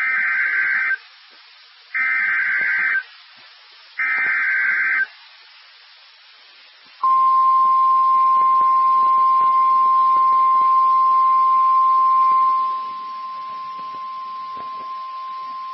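Emergency Alert System alert signal: three one-second bursts of SAME digital header data, then a single steady NOAA Weather Radio attention tone near 1050 Hz held for about nine seconds, dropping in level partway through.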